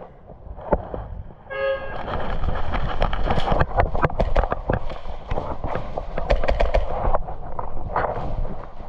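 A short horn toot about one and a half seconds in, then a dense run of sharp clicks and knocks over low wind rumble on the microphone.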